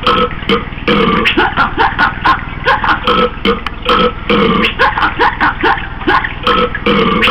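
A rapid run of short burps, about two or three a second, some clipped and some drawn out.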